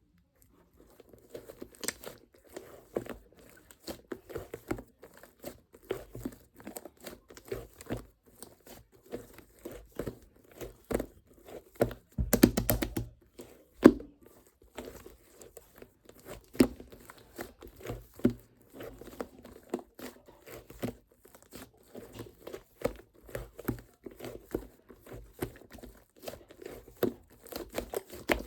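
Fluffy slime being squished, stretched and poked by hand: a steady run of small sticky clicks and crackles, with a denser stretch of crackling a little before halfway.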